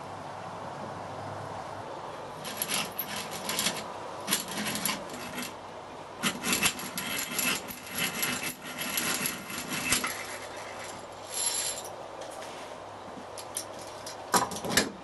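Geared hand drill (eggbeater drill) being cranked, its gears clicking and rattling in bursts as the bit turns, followed by two sharp knocks near the end.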